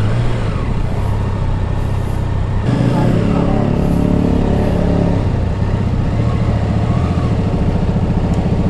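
Motorcycle engine running steadily. A louder, higher engine note stands out for about two seconds from around three seconds in.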